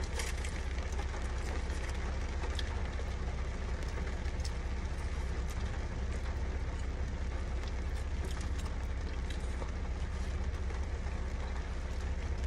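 Steady low rumble of a car cabin, with faint scattered clicks and mouth sounds from eating fries.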